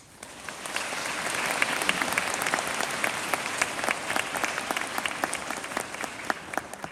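An audience applauding: many hands clapping, swelling in the first second, then tapering off to a few last claps near the end.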